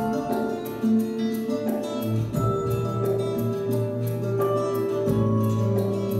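Instrumental introduction of a backing track: held notes over a bass line, with a light steady beat.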